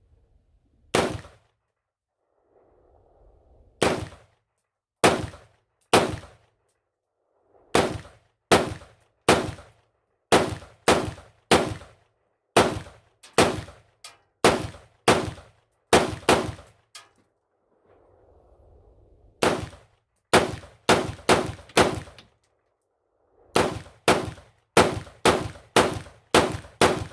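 AR-15 pistol firing semi-automatic, about thirty shots. Single shots a second or more apart come first, then quicker strings of several shots about half a second apart, broken by two short pauses.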